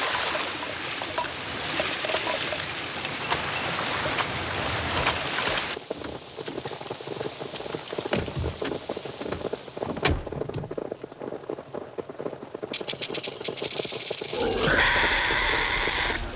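Heavy rain pouring and splashing, full and hissing at first, then duller for several seconds in the middle with a few sharp knocks. About two seconds before the end a loud pitched, rasping creature call breaks in: the film's Dilophosaurus calling.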